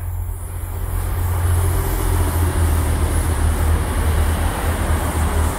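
Passenger train running past on the line behind the fence: a steady rumble of wheels and carriages that builds about a second in and holds.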